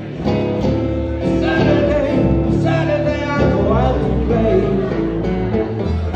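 Live blues song: a man singing into a microphone over acoustic guitar accompaniment.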